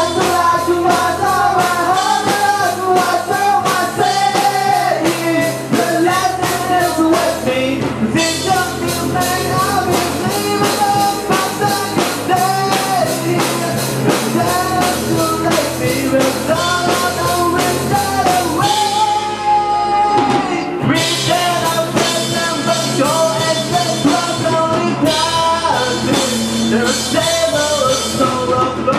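A metalcore band playing live: a singer over electric guitars and a drum kit. About two-thirds through, the cymbals and drums drop out briefly, then the full band comes back in.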